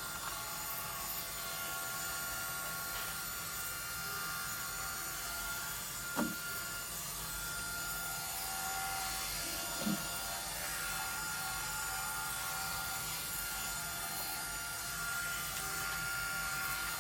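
iRobot Roomba 971 robot vacuum running: a steady motor whine with brush and suction noise, and two short louder sounds about six and ten seconds in.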